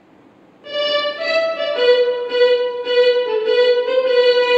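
A violin playing a short phrase for a listening quiz. It opens with two brief notes about half a second in, then settles on one long held lower note that keeps sounding with small breaks.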